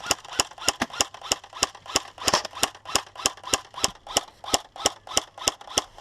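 Airsoft gun firing a steady run of single shots, about three a second, sharp snaps each followed by a brief ringing tone.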